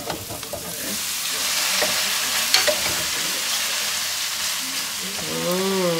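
Butter and parsley sauce sizzling in a frying pan, growing louder about a second in as freshly boiled pasta goes into the pan, with a few light knocks from the wooden spatula stirring it.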